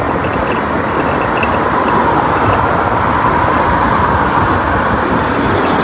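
Steady road and traffic noise heard while riding an electric scooter along a town street, swelling slightly in the middle.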